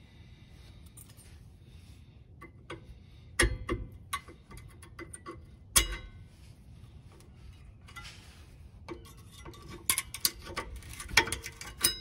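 Scattered metallic clicks and taps of a flat screwdriver prying the old brake pad hardware clips off a rear brake caliper bracket. The loudest is a sharp knock about six seconds in, and a quicker run of clicks comes near the end.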